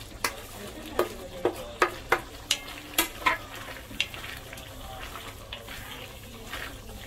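Wooden spatula knocking and scraping against a steel kadai as paneer cubes are pushed in and stirred through simmering chana masala, over a steady low sizzle. The knocks come irregularly for about the first four seconds, then the stirring goes quieter.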